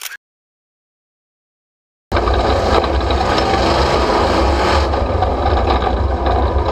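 Dead silence for about the first two seconds, then a Chevrolet pickup truck's engine running loud and steady as it drives the dirt course.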